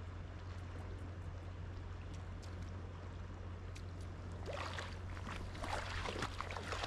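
River water running steadily, with a louder stretch of irregular scratchy noise beginning about four and a half seconds in.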